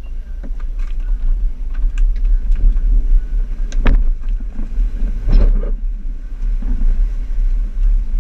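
A four-wheel drive heard from inside its cabin, driving along a rough dirt track: a steady low engine and road rumble, with knocks as it goes over bumps, the loudest about four and five and a half seconds in.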